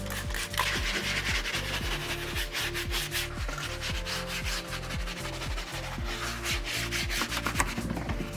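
Detail brush scrubbing cleaner into a car's textured plastic door panel in quick back-and-forth strokes, over background music with a steady beat.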